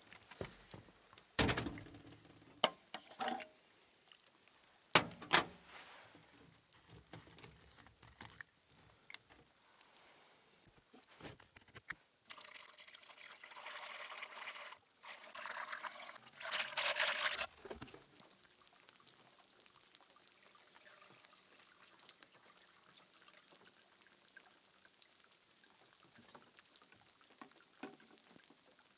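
Antifreeze being poured from a jug into the backhoe's cooling system, a steady pour of about five seconds that grows louder near its end. A few sharp knocks come before it.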